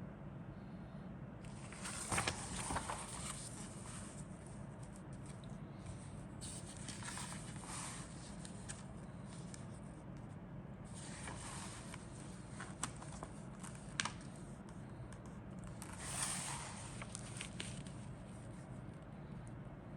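Plastic model-kit sprues and their bags being handled, in four short spells of rustling and scraping with a couple of sharp clicks about two-thirds of the way through, over a steady low hum.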